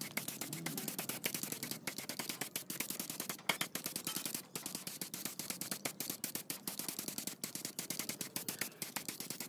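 Gravity-feed air spray gun spraying paint: a hiss broken by a fast, even rattle of sharp clicks, several a second.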